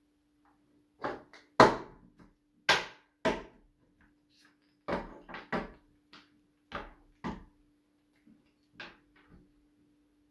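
Painted wooden nesting dolls being pulled apart and set down on a wooden tabletop: about a dozen sharp wooden clacks and knocks at irregular intervals.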